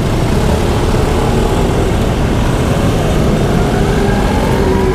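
Vintage Vespa Sprint's two-stroke single-cylinder engine running under way, mixed with wind rumble on the microphone and street traffic. The engine note rises over the last second or two.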